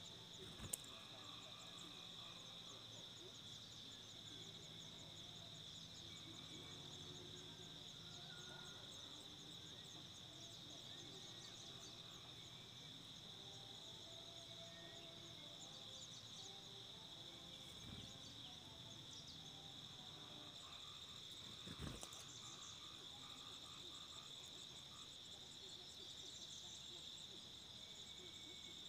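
Faint, steady high-pitched insect drone, like crickets, with faint scattered high chirps above it. A soft knock comes about a second in and another about 22 seconds in.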